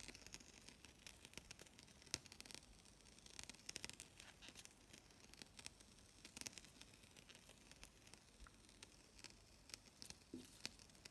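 Faint rustling and small scattered ticks of a satin ribbon petal being handled and stretched between the fingers.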